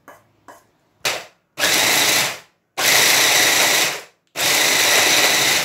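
Electric hand blender with a chopper bowl run in pulses: a short blip about a second in, then three bursts of about a second each, grinding fried peanuts and palm sugar for peanut sauce. Two light knocks at the start as the sugar is tipped into the plastic bowl.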